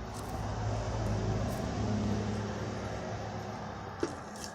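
A motor vehicle passing by: a low engine hum with road noise that swells and then fades. A single light click sounds about four seconds in.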